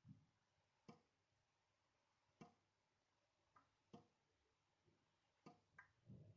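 Water drops falling from a dripping tap into a sink: about nine separate plinks at uneven intervals, a few of them softer, with a duller, lower plop near the start and another near the end.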